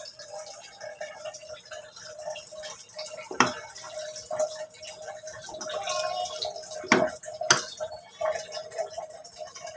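A spatula stirring and scraping chicken pieces in tomato sauce in a non-stick wok, with a few sharp knocks of the spatula against the pan: one about three and a half seconds in and two close together around seven seconds in.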